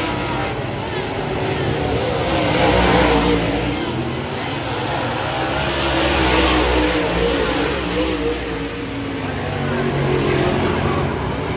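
Dirt-track modified race cars' V8 engines running hard around the oval, getting louder and fading as the cars come past, about three times, with revving.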